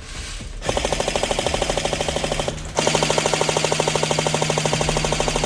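Airsoft M249 electric gun firing full-auto: two bursts of rapid, evenly spaced shots over the steady whine of its gearbox motor, the first about two seconds long, then after a brief break a longer one of about three seconds.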